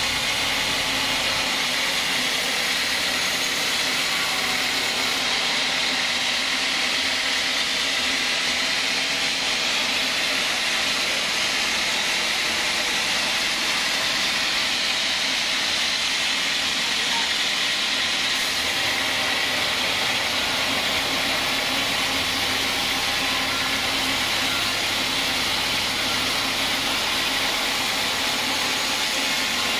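Band sawmill blade ripping lengthwise through a large log, a steady high saw noise with the machine running under it.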